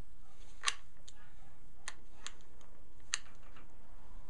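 Metal sling hardware clicking as a GI web sling is threaded through a rifle's sling swivel: four or five sharp, separate clicks, the loudest under a second in.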